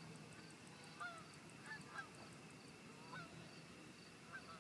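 A flock of geese flying over, honking faintly now and then, a handful of separate calls. Insects chirp steadily in an even rhythm behind them.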